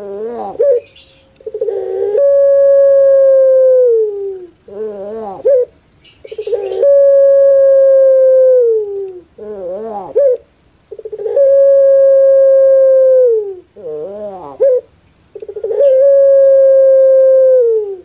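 Puter pelung (Barbary dove, Streptopelia risoria) cooing repeatedly: each call is a short wavering coo followed by one long, drawn-out coo held on one pitch that falls away at the end. There are four calls, one every four to five seconds.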